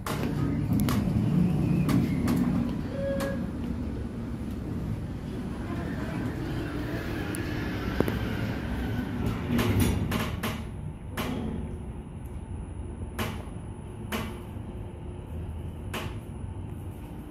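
Hyundai WBST 2 elevator heard from inside the car: a low rumble as the doors slide shut and the car travels between floors, with a series of sharp clicks along the way.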